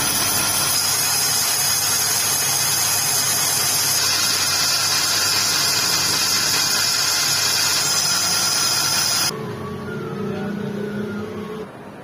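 Lathe turning a motorcycle drum-brake hub while the cutting tool skims the brake drum's inner surface, a steady loud hiss of metal cutting. It stops sharply about nine seconds in, leaving a quieter machine hum that fades near the end.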